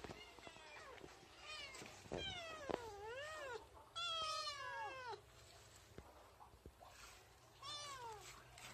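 Kitten meowing repeatedly, about five calls that bend and fall in pitch. The loudest comes about four seconds in and another near the end.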